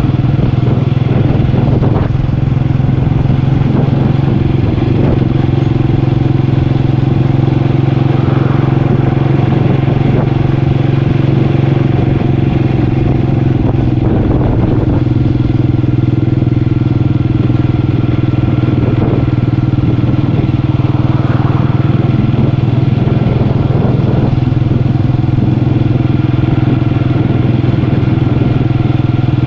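Motorcycle engine running at a steady pitch while riding, with no revving up or down.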